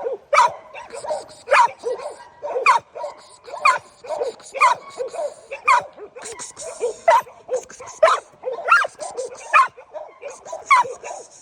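Pit bull barking over and over, about one to two sharp barks a second, with some higher yips and whines between them.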